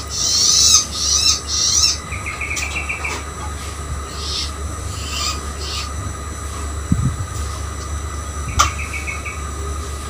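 Young long-tailed shrike (cendet) calling: high, scratchy calls in the first two seconds, then a short, rapid stuttering call about two seconds in and another near the end, over a steady low hum.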